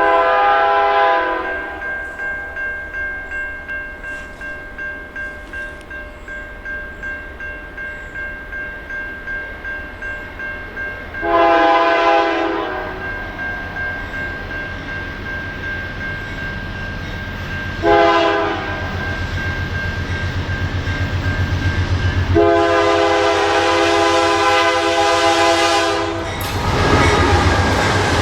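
Freight locomotive horn sounding the grade-crossing signal of long, long, short, long blasts as the train approaches the crossing. A crossing bell rings steadily underneath, and the locomotive's rumble and wheel noise grow loud near the end as the train reaches the crossing.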